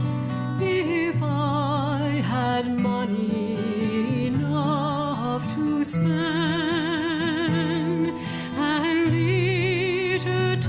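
Background music: a solo voice sings slow held notes with a wide vibrato over acoustic guitar.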